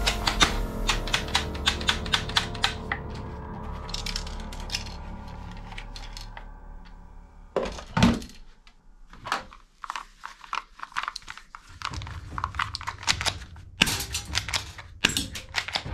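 Plastic toy guns being handled. A toy rifle clicks rapidly at first, the clicks and a ringing tone dying away over several seconds. There is one loud thunk about eight seconds in as it is set down on the table, then scattered clicks, and near the end a fast run of plastic clicks as a gold toy pistol is worked.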